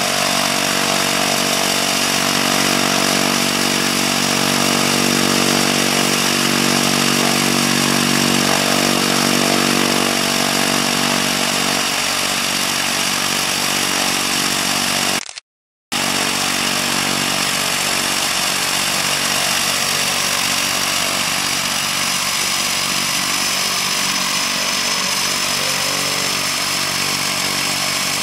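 Air Tractor AT-502 crop-duster's Pratt & Whitney PT6A turboprop running steadily on the ground, with its propeller turning and a steady turbine whine. The sound cuts out for about half a second midway, then resumes.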